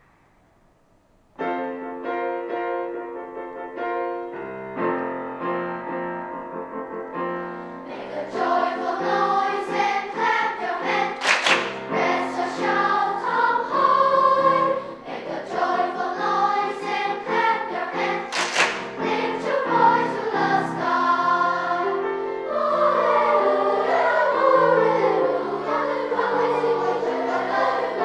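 Children's equal-voice school choir singing with piano accompaniment. After a moment of near silence, piano chords begin about a second and a half in, and the voices join at about eight seconds. Two sharp clicks cut through the singing, one near the middle and one a few seconds later.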